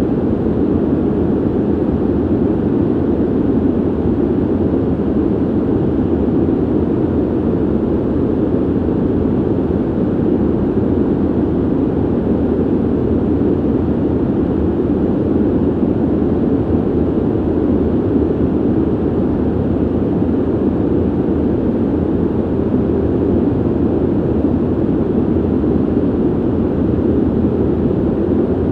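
Steady ventilation noise: an even, deep rush of air with no hum, rhythm or change.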